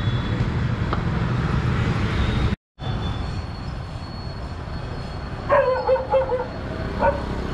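Steady low rumble of road traffic, which cuts out for a moment a little after two seconds in. In the second half a dog yelps and whines a few times.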